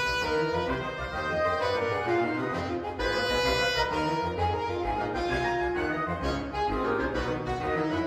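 Woodwind ensemble playing a full-band passage of many pitched parts at once, the notes changing throughout.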